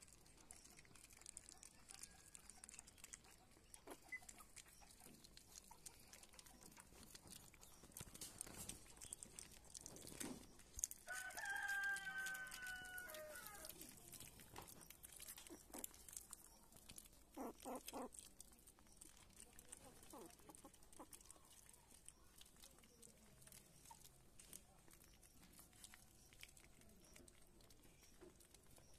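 Faint smacking and small clicks of puppies eating rice off a plate, near silence overall. About eleven seconds in, one drawn-out animal call lasting about two seconds stands out as the loudest sound.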